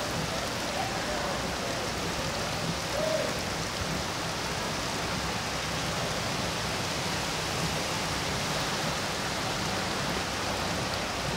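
Rain falling steadily on floodwater: an even, unbroken hiss.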